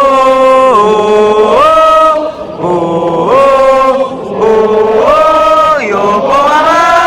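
Baseball stadium crowd singing a team cheer song in unison, a melody of held notes stepping up and down.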